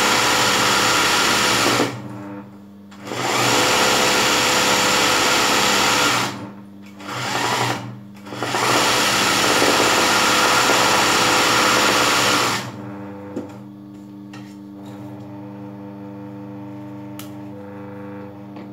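Sewing machine stitching free-motion embroidery in fast runs of a few seconds, stopping and starting four times. It stops about two-thirds of the way in, leaving a steady low hum and a couple of light clicks.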